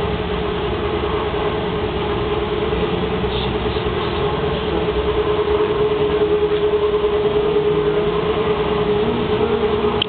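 Strong wind rumbling on the microphone, with a steady droning tone running through it.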